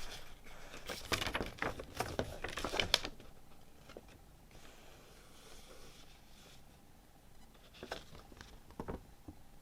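Hands handling a CD album's packaging: rustling and crinkling with small clicks for about three seconds, then quiet, then a few soft taps near the end.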